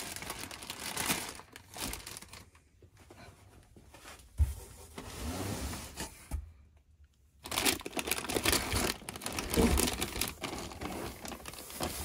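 Plastic anti-static bags holding motherboards crinkling and rustling as they are handled and shuffled in a cardboard box. It comes in two stretches with a short pause between, and there is a dull knock about four seconds in.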